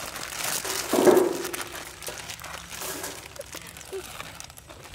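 Plastic instant-noodle packets crinkling and rustling as they are handled and opened, with a short louder sound about a second in.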